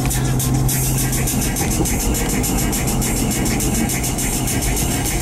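Car running through city streets, heard from inside the cabin: a steady mix of engine hum and road noise.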